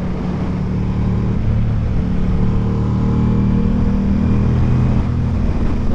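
Ducati Diavel V4's 1,158 cc V4 engine running through an Akrapovic exhaust while the bike is ridden, holding a steady, even note.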